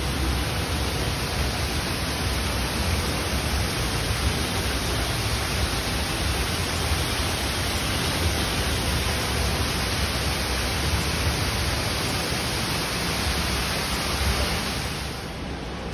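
Steady rush of water from a waterfall spilling over artificial rockwork into a pond, an even hiss with no breaks. It falls away to a quieter level near the end.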